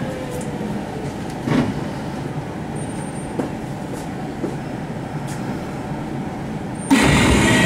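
Interior running sound of a Kintetsu 1259 series motor car with a Hitachi GTO VVVF inverter as the train comes to a stop: the inverter's falling whine fades out just after the start, leaving a steady low rumble with a few clicks and knocks. Near the end a much louder sound starts suddenly.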